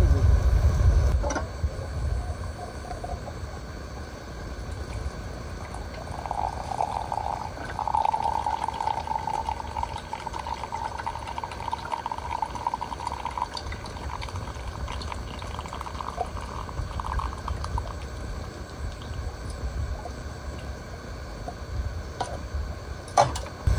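Liquid being poured into a container: a steady pour lasting several seconds, then a shorter second pour.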